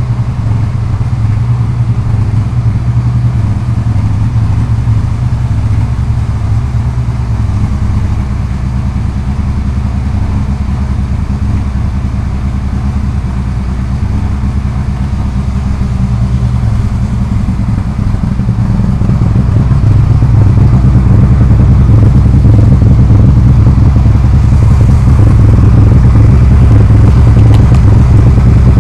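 Lada 2108's four-cylinder engine running through a tuned exhaust, a steady deep drone. It grows louder about two-thirds of the way through and holds there.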